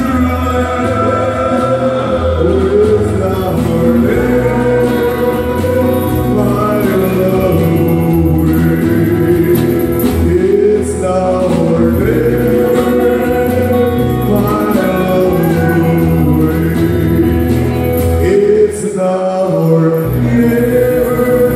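Live country band playing a song: a man singing lead over strummed acoustic guitars and a fiddle.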